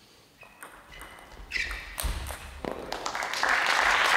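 Table tennis rally ending: a few sharp clicks of the ball off rackets and table, with short shoe squeaks on the court floor, then from about three and a half seconds in, spectators applauding the won point.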